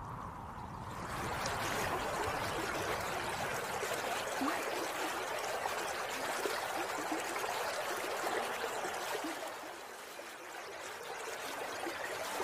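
Steady babble of flowing water, like a trickling stream, growing louder over the first second or two and dipping briefly near the end.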